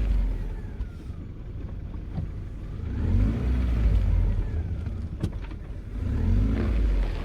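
Car engine running, its pitch rising and falling with the throttle, with one sharp crack about five seconds in.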